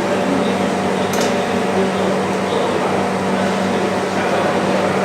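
Steady machine hum with a constant low tone and fan-like noise, a brief click about a second in, and voices in the background.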